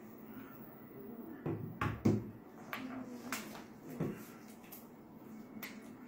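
A pistol and its holster being handled on a desk in gloved hands: a few scattered sharp clicks and knocks as the gun is drawn and turned over, the loudest about two seconds in.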